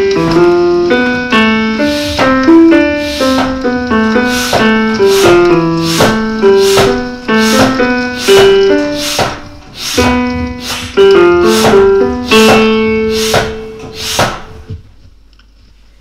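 Keyboard music with a piano-like sound: a melody of separate notes over a lower line, with a steady beat of about two sharp strokes a second. It stops about a second before the end.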